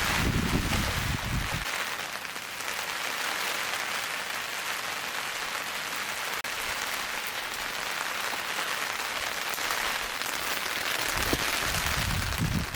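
Steady rain pattering, an even hiss with no break. A low rumble comes in briefly at the start and again near the end.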